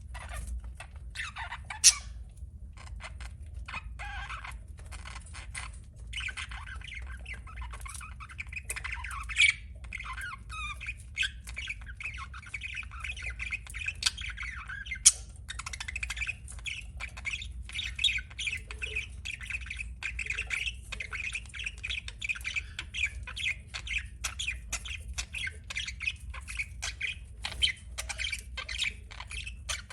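Budgerigar chatter: quick warbling chirps and squawks, sparse at first and running together into a continuous warble from about six seconds in, with a few sharp, loud clicks standing out.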